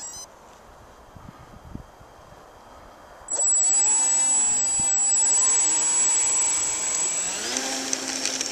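Radio-controlled model T-28 Trojan's motor and propeller starting suddenly about three seconds in and running loudly with a high steady whine, its pitch wavering and then shifting near the end as the model is throttled for its takeoff.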